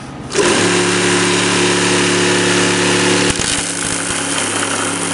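Chainsaw mounted in a table saw bed switched on about half a second in, then running at a steady pitch, with a brief break a little after three seconds before it carries on.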